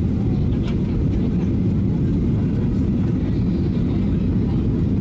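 Steady low rumble of cabin noise inside a Ryanair Boeing 737-800 on its approach to land: jet engine and airflow noise heard through the fuselage.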